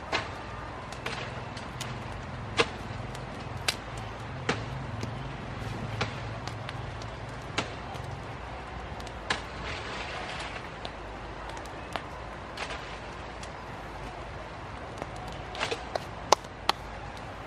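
A series of sharp chopping strikes at irregular intervals, about one every second or two, with a quicker cluster near the end. Under them runs a low steady hum that fades out about halfway through.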